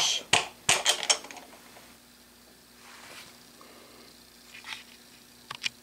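Metal parts being handled: a few sharp clinks and knocks in the first second, then only a faint steady hum, with two small clicks near the end.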